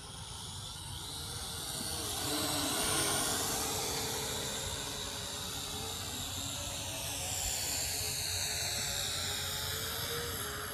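Syma X8C quadcopter in flight: the whine of its motors and propellers rises in pitch and then slides down, loudest a couple of seconds in.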